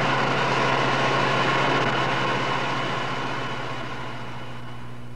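A steady rushing, engine-like noise with a low hum, fading slowly over the second half.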